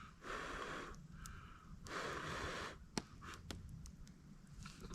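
Two faint breathy puffs of air from a person, about a second apart, followed by a sharp click about three seconds in.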